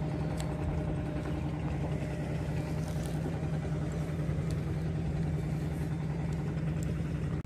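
An engine idling steadily, a low even drone, with a few faint ticks.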